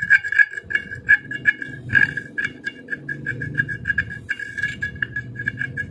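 Flat screwdriver scraping rust and dirt out of the metal seal seat in a monoblock water pump's housing, metal on metal, in quick irregular strokes.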